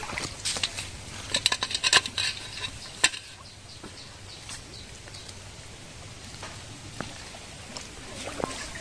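Eels and small fish being emptied from a net trap into an aluminium pot of shallow water: splashing and sharp knocks against the metal for the first three seconds, then the catch wriggling and splashing softly in the pot.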